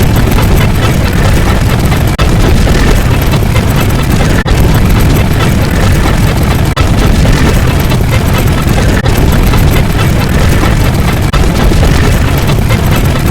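Loud, dense wall of sound-effect noise, heaviest in the low end, broken by a brief dip about every two and a quarter seconds.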